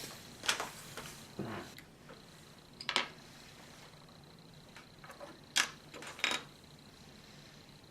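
Plastic LEGO pieces clicking and rattling as they are handled and fitted, several short clicks scattered through.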